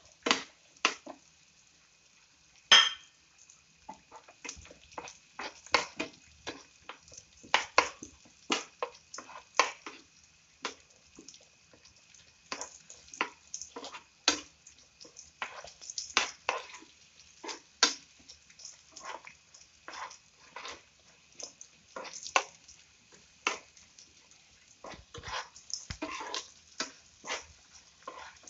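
Steel ladle stirring cashews and raisins frying in ghee in a non-stick pan: irregular clinks and scrapes against the pan, about one or two a second, with a sharper knock about three seconds in.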